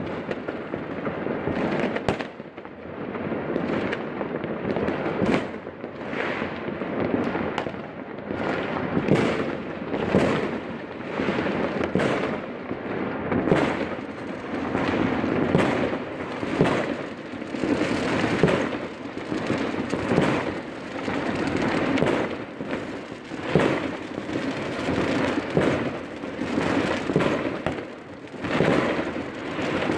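Many fireworks and firecrackers going off at once: a constant rumble of overlapping explosions with frequent sharper bangs and cracks throughout.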